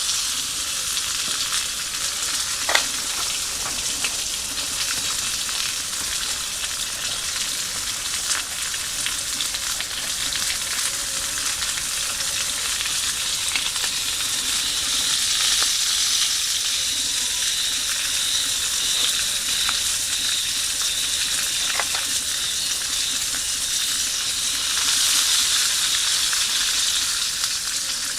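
Food sizzling steadily in an iron frying pan over a campfire, with a few sharp clicks along the way; the sizzle swells a little near the end.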